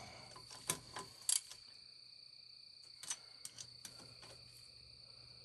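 Hand ratchet clicking in short scattered bursts, in two groups, as the stator cover bolts on a Suzuki GSX-R 600 engine are snugged just past hand tight, a little at a time so as not to strip the threads in the aluminium block. A steady high insect trill carries on underneath.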